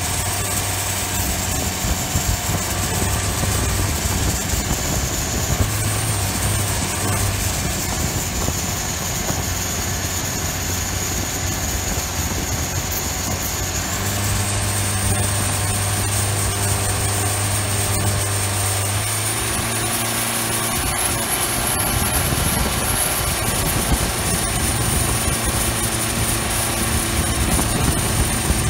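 Turbocharged diesel engine of a modified Thai longtail racing boat running hard under way. Its steady low drone is topped by a high turbo whistle that shifts in pitch, stepping up about halfway through and again later.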